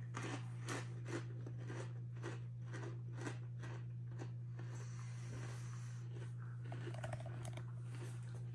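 Ridged Walkers Max potato crisp being chewed with the mouth close to the microphone, crunching about twice a second and thinning out in the second half, over a steady low hum.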